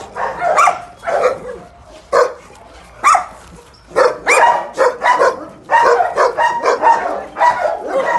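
Several dogs barking: a few separate barks in the first seconds, then a dense, overlapping run of barks from about four seconds in.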